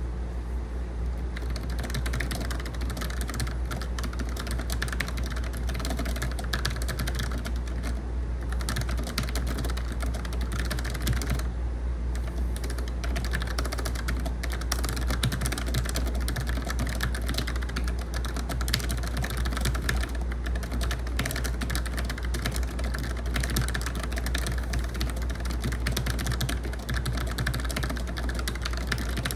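Fast continuous typing on a Logitech MX Mechanical keyboard with low-profile tactile switches, a dense stream of key clicks with brief lulls, over the steady hum of an air conditioner.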